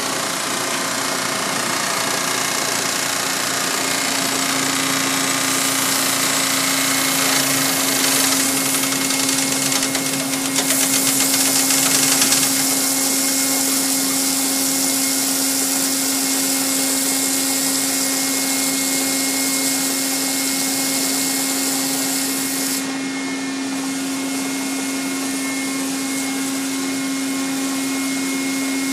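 Centrifugal finishing machine running: a steady machine hum under a loud, even hiss. The hiss grows louder and more rapid for a couple of seconds around the middle, then its highest part falls away a little over two-thirds of the way through.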